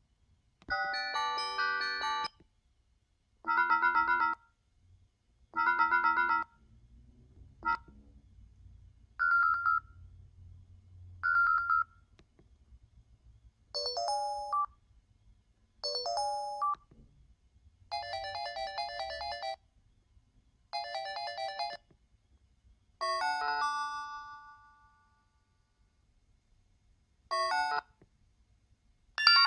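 Built-in ringtones of an O2 X2i flip phone: a string of short electronic tones and chimes played one after another, with brief silences between them. Most patterns sound twice in a row, and one near the end rings on and fades out.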